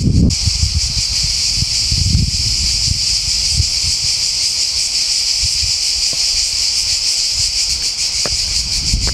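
A chorus of cicadas buzzing steadily at a high pitch with a fast pulsing, over an irregular low rumble of wind on the microphone.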